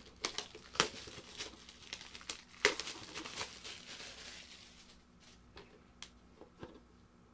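Plastic shrink wrap crinkling and tearing as it is peeled off a small cardboard box, with many sharp crackles. The crinkling dies away about five seconds in, leaving a few light taps from handling the box.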